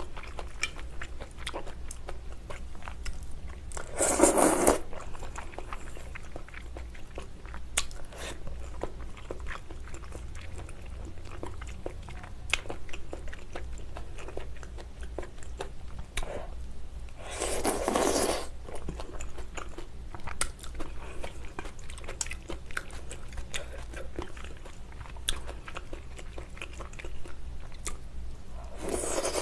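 Close-miked eating of malatang: steady chewing with soft crunches and wet mouth clicks, broken twice by a loud slurp about a second long, about four seconds in and again around eighteen seconds.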